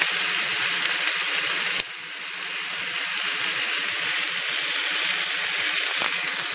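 Chicken breasts sizzling as they fry in a stainless steel skillet: a steady hiss that drops suddenly about two seconds in, then slowly swells again.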